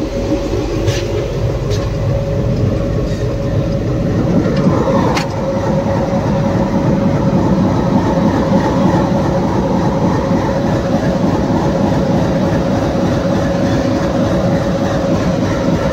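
Diesel-electric locomotive engine idling, heard in the cab: a steady drone with a constant hum over it. A few light clicks come in the first few seconds.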